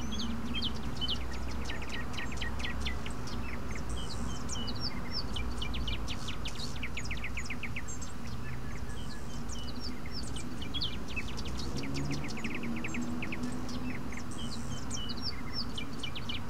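Many small birds chirping, with quick runs of rapid chirps, over a steady low outdoor rumble.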